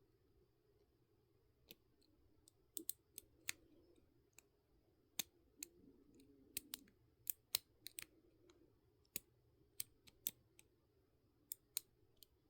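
A lock pick working the pin tumblers inside a lock under tension: faint, sharp metallic clicks, a couple of dozen of them at irregular intervals.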